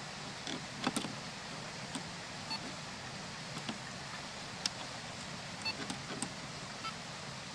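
Scattered light clicks and taps from handling an electric fence energizer and a handheld fence tester, over a steady background hiss.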